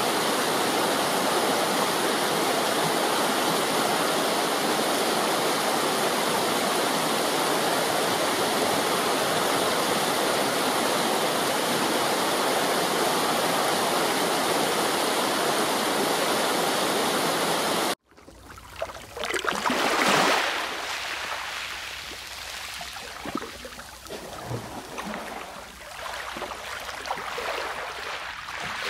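Steady rushing of river water, cutting off abruptly about eighteen seconds in. An uneven water sound follows that swells and ebbs, like waves washing ashore.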